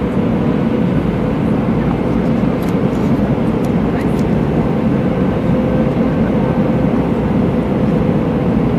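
Steady drone of an Airbus A319 jet airliner in flight, with a faint steady hum.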